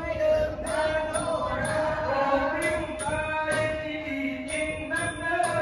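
A male nang talung performer chanting Thai verse in a sung, drawn-out style, accompanied by a southern Thai Nora ensemble. A high metallic clink keeps time about twice a second.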